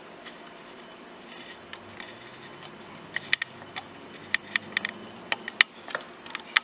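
Pieces of rice-flour and tapioca noodle dough dropped by hand into a pot of hot water, giving a quick, irregular run of about a dozen small sharp splashes from about three seconds in, over a steady low hum.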